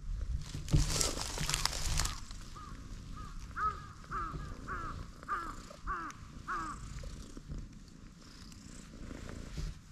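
A cat purring as it is stroked, with a loud rustling noise between about half a second and two seconds in. In the middle, a bird calls about seven times in a row, one short call every half second or so.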